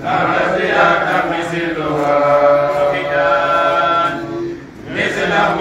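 A man's voice chanting a religious recitation in long, drawn-out melodic phrases, pausing briefly about four and a half seconds in before resuming. A steady low hum runs underneath.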